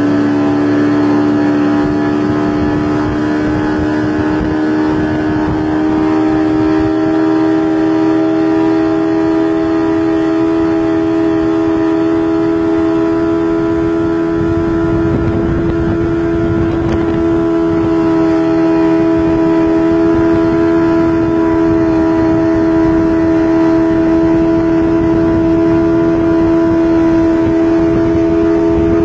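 Outboard motor of a speedboat running at high, steady throttle while towing, its note edging slightly higher in the first few seconds and then holding, over the rush of wind and wake water.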